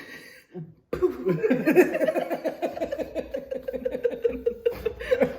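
A person laughing hard: from about a second in, a long unbroken run of quick, even laughs.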